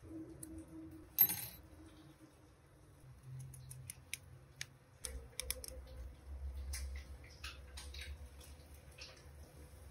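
Small plastic and metal clicks and rattles from the Sage Barista Express's removable upper burr carrier being handled, its wire handle moved and its plastic internal grind-adjustment ring turned. One louder knock comes about a second in.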